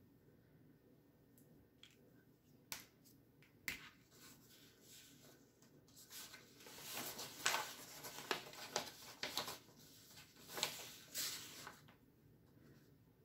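Two sharp clicks a second apart, a dry-erase marker being capped and set down, then about six seconds of paper rustling and sliding as a large sheet of drawing paper is handled and laid flat on the table.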